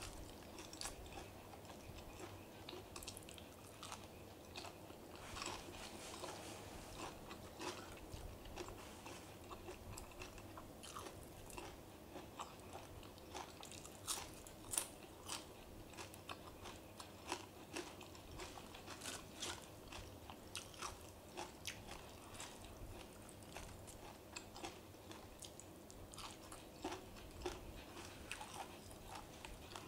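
A person chewing and biting crunchy food, with quiet, irregular short crunches throughout.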